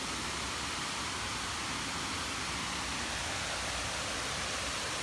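Steady rushing of a large waterfall.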